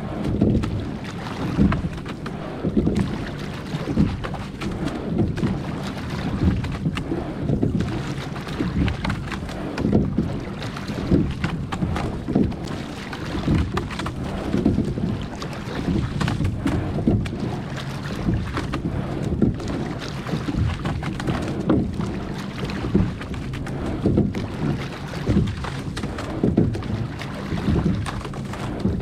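Rowing boat under way: oars working the water in a steady stroke rhythm, with a swell of splashing and washing about every two seconds.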